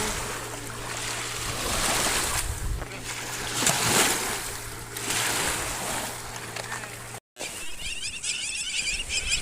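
Lake waves washing and splashing against the shore, swelling and falling in repeated surges.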